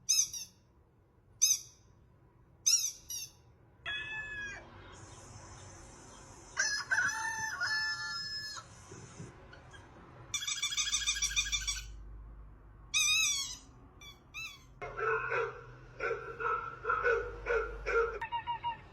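A string of assorted sound effects played one after another: a few short, high, falling chirps, then varied bird-like calls and squawks, and near the end a run of short tones repeated evenly about twice a second.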